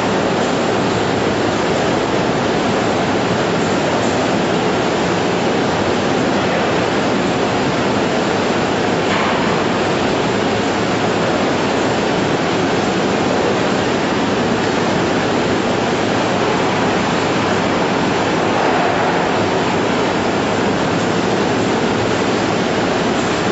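Running poultry-processing line machinery, an even, unbroken rush of noise with no rhythm or pitch.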